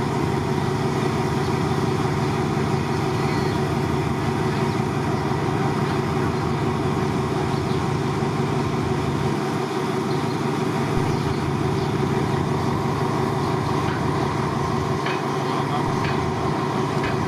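Diesel locomotive engine running steadily at a constant level, a low hum with steady tones, and a few faint clicks near the end.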